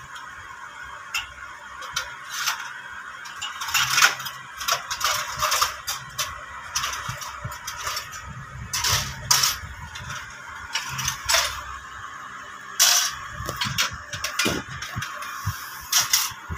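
Irregular sharp clicks and light rattling knocks, a few to several a second and uneven in strength, over a steady background noise; a few louder knocks come about four, nine and thirteen seconds in.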